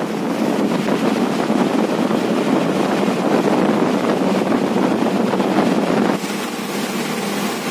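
Wind noise from a side window of a moving MSRTC bus, mixed with the bus's engine and road noise. About six seconds in it drops suddenly to the quieter, steady running noise heard inside the bus.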